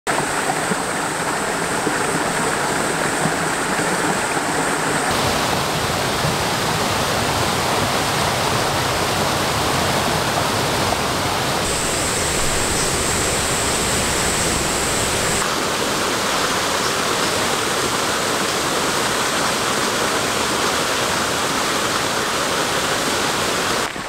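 Rushing water of a mountain valley stream with small waterfalls: a steady, loud rush that changes character abruptly a few times, about 5, 12 and 15 seconds in.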